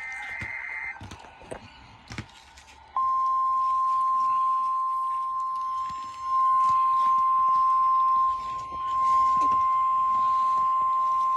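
NOAA Weather Radio warning alarm tone: one steady, loud 1050 Hz tone starting about three seconds in and held for about nine seconds, its level dipping briefly twice. It is preceded at the start by a short burst of the digital SAME alert-header data tones, and signals that a tornado warning is being broadcast.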